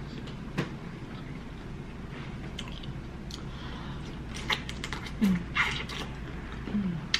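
Close-miked eating sounds of a person eating sauced shrimp: scattered wet mouth clicks and lip smacks as she chews and sucks sauce off her fingers, with two short falling hums of enjoyment in the second half.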